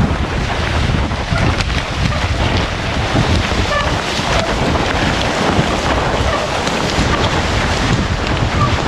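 Steady wind noise on the microphone of a mountain bike rider descending a trail at speed, with frequent small knocks and rattles from the bike over rough ground.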